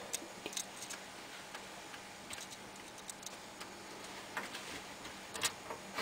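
Faint, scattered small metallic clicks and ticks of a screwdriver and screws against a steel computer case as a motherboard is screwed in.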